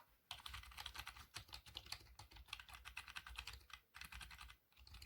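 Fast, faint keystrokes tapping on a Razer Cynosa Lite membrane gaming keyboard, with short pauses near the end.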